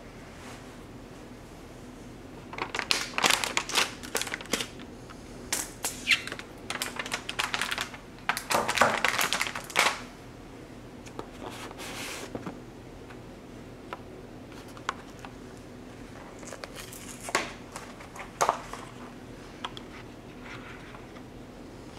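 Handling noise from a graphics card and its cardboard-and-foam box: several seconds of busy rustling, scraping and clicking as the card is lifted out and set down, then a few scattered taps and clicks as the cardboard insert is handled.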